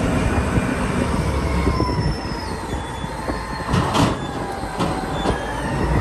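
Caterpillar 992C wheel loader's diesel engine running with a steady low rumble as it tips a bucket of soil into a dump truck, with thin high whines over it and a sharp knock about four seconds in.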